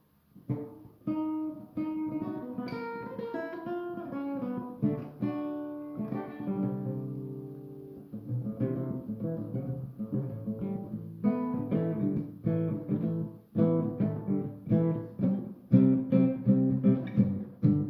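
Guitar played solo: picked notes and chords at first, a chord left ringing, then rhythmic strumming from about eight seconds in that grows louder near the end.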